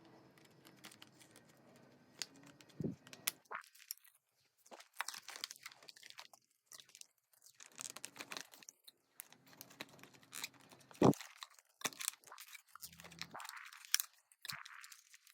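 Irregular small clicks, rustles and knocks of steering-wheel parts being handled and fitted, with one sharper knock about two-thirds of the way through.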